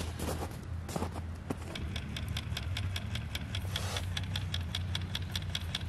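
Vintage Ski-Doo snowmobile engine idling steadily. From about two seconds in, the small reel on an ice-fishing rod clicks about five or six times a second as line runs down the hole.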